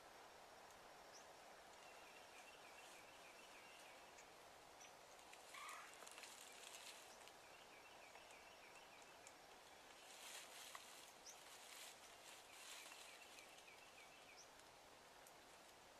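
Faint outdoor ambience: a small bird's rapid trills repeat several times, with a brief call about five and a half seconds in. Two short spells of rustling in dry brush, one about five seconds in and one about ten seconds in.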